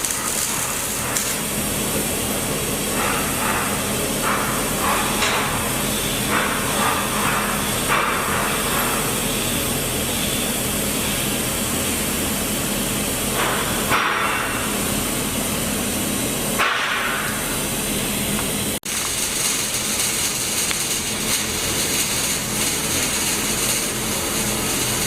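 Welding arc on a pipe joint, hissing and crackling steadily, with one very short break about three-quarters of the way through.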